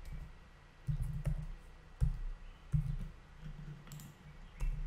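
A few scattered clicks of a computer keyboard and mouse, over an intermittent low rumble.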